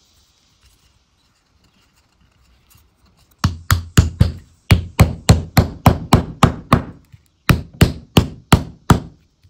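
Hammer tapping a wooden block down into place on a wooden box: after a few quiet seconds, a quick run of sharp knocks at about three or four a second, with a brief pause near the end.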